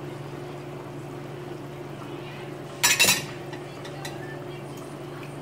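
Pot of stew bubbling on an electric stovetop over a steady low hum. A brief, loud clatter of dishware comes a little under three seconds in.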